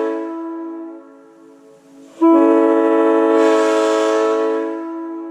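Leslie S3J three-chime locomotive air horn sounding a chord: a held blast cuts off about half a second in and its echo dies away. A second long blast starts about two seconds in and stops near the end, again trailing an echo.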